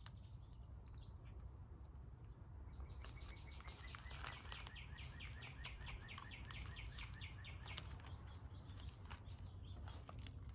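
A songbird singing a fast, even run of repeated chirping notes, about five a second, lasting some five seconds from about three seconds in, over a faint low rumble. A few sharp clicks follow near the end.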